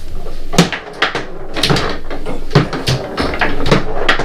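Foosball game in play: about eight sharp, irregular knocks and clacks as the ball is struck by the figures on the rods and bangs against the table.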